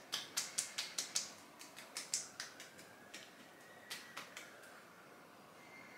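Light, quick slapping taps of fingertips patting a skincare product into the face: a rapid run of about a dozen taps over the first two and a half seconds, then a few more scattered taps a little later.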